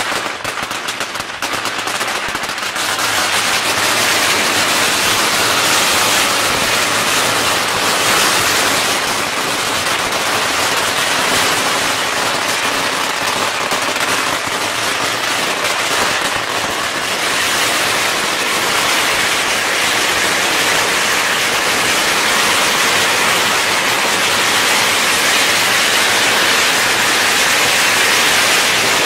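A very long string of firecrackers (a 250,000-piece string) going off. For the first two or three seconds the bangs are rapid but separate, then they run together into a loud, unbroken crackle that goes on steadily.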